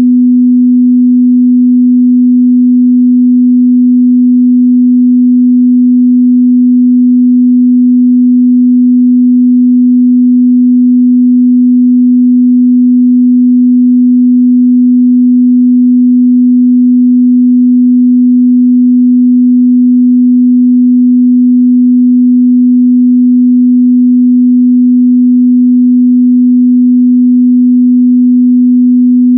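Steady, loud 248 Hz sine test tone: a single unchanging low hum with no other sound.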